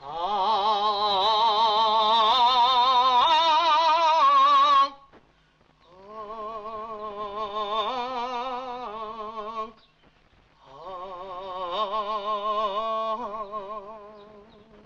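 A solo voice singing unaccompanied in three long, held phrases with a wide, wavering vibrato; the first phrase is the loudest and the last fades out.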